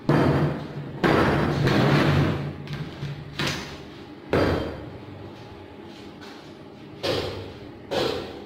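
Welded steel window-grill frame clanking against a steel welding table as it is handled and lifted off: about six heavy metal knocks, each followed by a ringing, fading tail.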